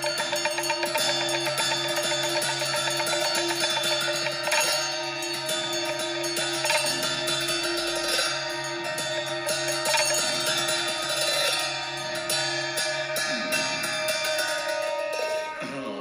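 Tibetan Buddhist ritual music: large brass cymbals struck repeatedly, fast at first and then in spaced strokes, over steady held droning tones.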